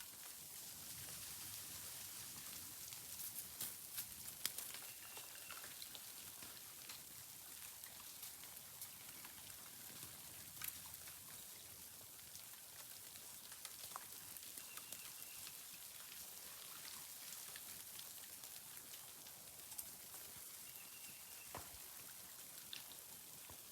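Melting snow and ice dripping: scattered faint drips and ticks of meltwater over a steady soft hiss, with a short high chirp every several seconds.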